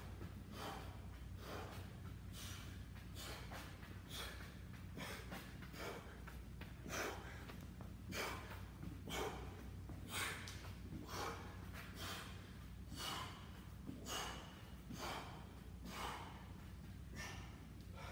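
A man breathing hard from exertion: forceful, hissing exhales in a steady rhythm of one to two a second, over a steady low hum.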